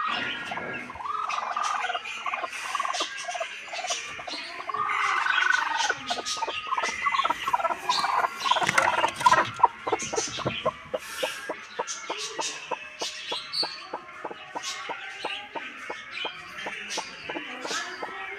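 A hen on her nest clucking and calling, followed by a long run of short clicks and rustles.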